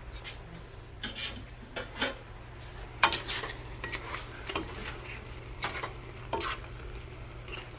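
Kitchen utensils and dishes clinking and clattering in irregular short knocks during cooking, the sharpest about three seconds in, over a steady low hum.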